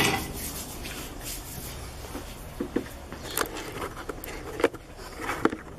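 A few light knocks and clicks, several in the second half, over quiet room noise.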